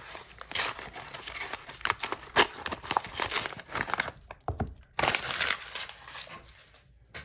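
Packaging crinkling and rustling as it is handled and opened in irregular spells, with a short pause about four seconds in, fading out near the end.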